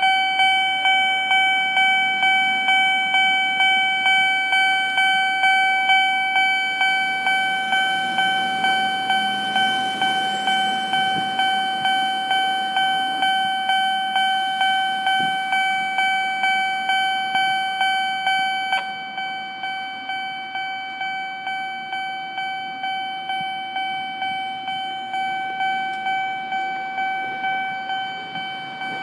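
Japanese level-crossing warning alarm starting up suddenly and ringing steadily, an electronic ding repeating about one and a half times a second, a little quieter about two-thirds of the way through. The crossing has set itself off for a reason the uploader cannot explain.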